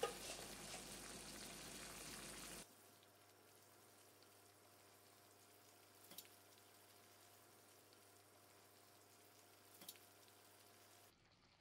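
Curry simmering in a pan on the stove, a faint sizzling hiss for the first two or three seconds. It then drops to near silence, with only a faint hum and two soft ticks.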